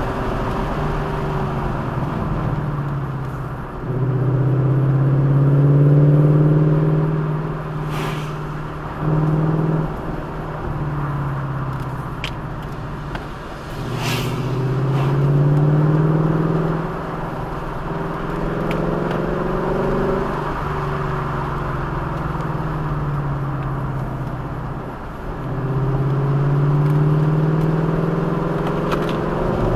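A road vehicle's engine heard on board while driving a twisting road. It rises in pitch as it accelerates about five times and drops back in between, over steady road noise, with a couple of sharp clicks partway through.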